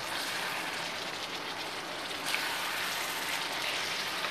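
Chicken curry simmering in a heavy kadai on an induction cooktop: a steady sizzling, bubbling hiss as a wooden spatula stirs the chicken and potatoes. The hiss gets brighter about two seconds in.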